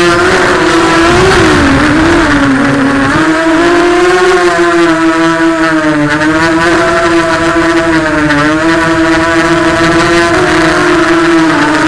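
Bolt 250 quadcopter's brushless Cobra 1960kv motors spinning DAL propellers in flight: a loud, steady buzzing whine whose pitch wavers up and down with the throttle, dipping briefly a couple of seconds in.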